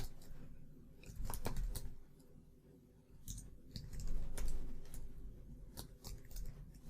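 Computer keyboard keystrokes, a sparse irregular run of clicks as code is typed.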